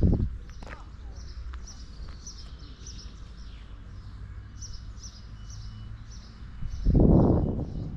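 Small birds chirping rapidly and repeatedly, short high chirps one after another. A low muffled bump comes at the very start, and a louder low rumble of about a second comes near the end.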